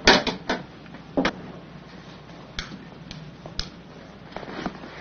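A kitchen cupboard door being opened and handled: a quick run of light clicks and knocks in the first second and a half, then a few single sharp clicks further apart.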